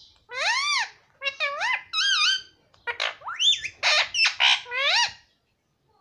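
Indian ringneck parakeet vocalizing in a quick string of about a dozen short, squawky calls over five seconds, each sliding up and down in pitch.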